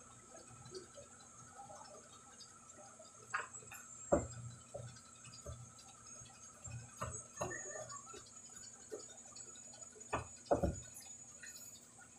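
Faint scattered knocks and small splashes, about seven of them, the loudest about four seconds in, as chopped red chili is dropped into a pan of tuna in coconut milk.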